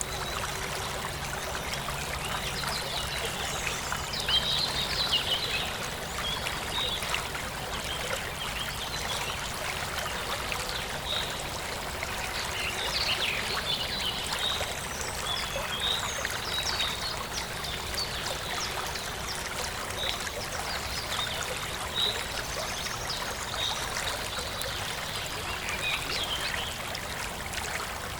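Forest stream trickling and flowing steadily, with birds chirping over it. A bird repeats a short, high chirp about every two seconds through the second half.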